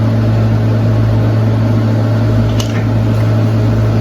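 A steady low hum with a faint tick about two and a half seconds in.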